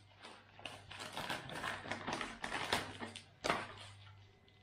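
Plastic and paper packaging crinkling and rustling in irregular crackles as a small lure packet is handled and opened by hand, with one sharper crackle about three and a half seconds in.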